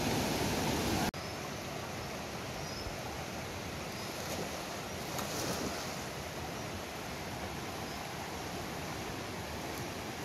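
Mountain river rapids rushing steadily over boulders. Loudest in the first second, then the rushing drops abruptly and carries on at a slightly lower, even level.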